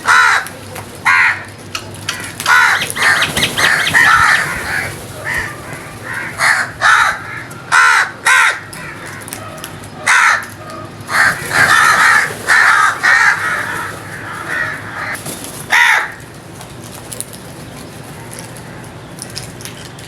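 Crows cawing: a long run of harsh caws in quick, irregular succession, some running together, stopping about 16 seconds in.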